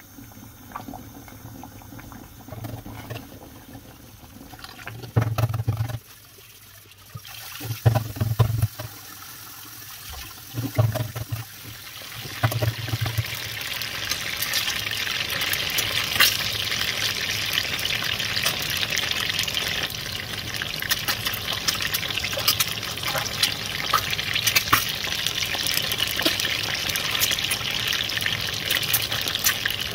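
Food cooking in a pot or pan: a steady hissing, crackling sizzle sets in about twelve seconds in and keeps going, after a quieter stretch with a few short low thumps.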